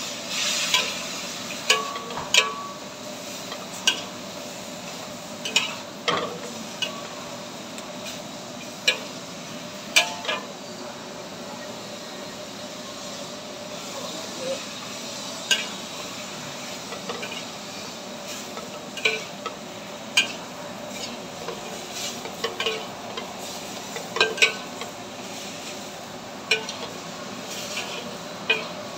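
Metal spatula clanking and scraping against a pan in sharp, irregular strikes over the steady sizzle of a stir-fry cooking.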